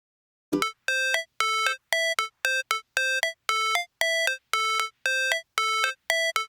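Electronic music: a synthesizer plays a run of short, evenly spaced beeping notes, about two a second, starting about half a second in.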